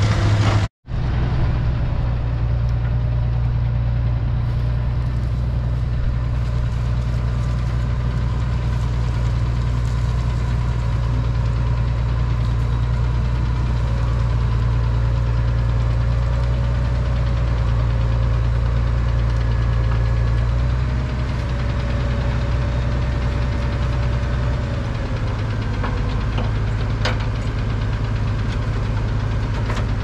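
Tractor's diesel engine idling with a steady low hum. A faint high whine wavers above it for several seconds in the middle, and the sound drops out for an instant just under a second in.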